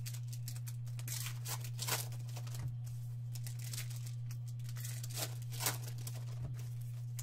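Foil wrappers of 2018 Topps Gypsy Queen baseball card packs being torn open and crinkled by hand, in irregular crackles, over a steady low electrical hum.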